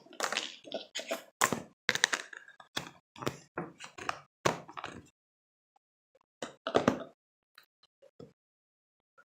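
Slime being squished and poked by hand: a quick run of short, irregular pops and clicks, a pause about five seconds in, then a few more.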